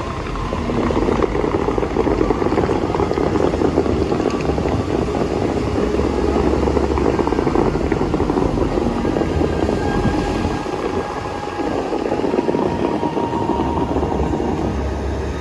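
Bellagio fountain show's water jets spraying high and crashing back onto the lake, a steady rushing roar that swells about a second in, with the show's music faint beneath it.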